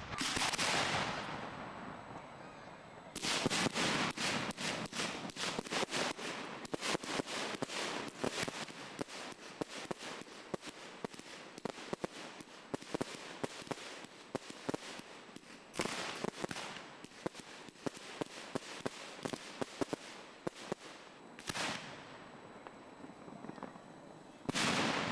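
Fireworks going off: a firework cake firing a fast run of sharp cracks and pops for about twelve seconds, starting about three seconds in. Single heavy bangs follow about sixteen and twenty-one seconds in and again at the very end, and a bang is fading out at the start.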